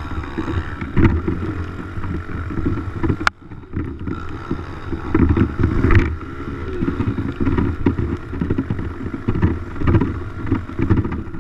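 Dirt bike engine running and revving unevenly as it is ridden, with a steady whine over the low pulsing of the engine. A single sharp knock comes about three seconds in.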